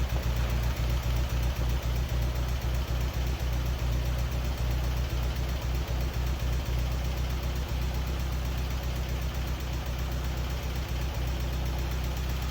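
Freshly rebuilt Mazda Miata 1.6-litre four-cylinder engine idling steadily on its first start-up after the rebuild. It has a little tick, which the builders take for ignition timing that is not set perfectly.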